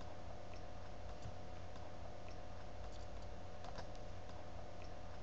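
Faint, irregular clicks like computer keyboard typing over a steady background hiss and low hum.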